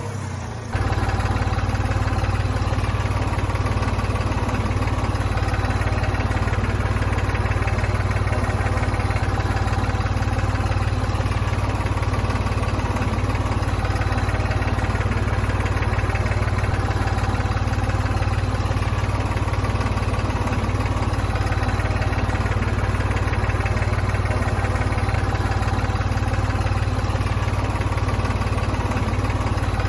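An engine idling steadily, a low even hum that holds one speed throughout. It comes in just under a second in, after a brief dip.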